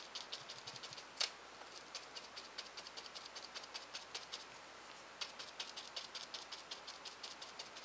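Paintbrush dabbing and scratching acrylic paint through a stencil onto watercolor paper: a faint, quick run of small taps, several a second, with one sharper tick about a second in.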